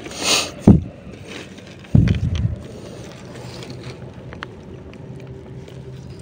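Camera handling noise: a short hiss, a sharp knock, then a heavy thump about two seconds in, followed by a low steady rumble of the microphone pressed against cloth trousers.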